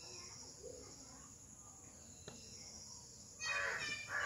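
Quiet outdoor background with a faint steady high hiss, broken near the end by a child's voice calling out loudly.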